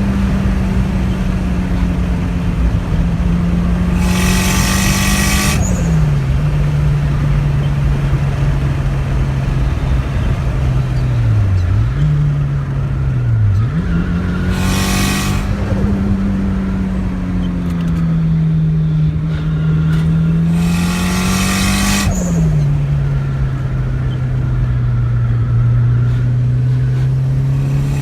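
Mitsubishi Lancer Evolution IV's turbocharged 2.0-litre 4G63 four-cylinder engine running under way. Its pitch holds fairly steady and then drops sharply twice, as at gear changes. Three times, loud rasping bursts rise over the engine note for a second or two.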